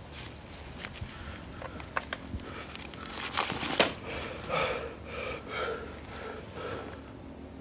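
A badly wounded man's heavy, laboured breathing with sniffs, in short breathy gasps about every half second, mixed with a few small clicks and rustles of cloth and gear being handled.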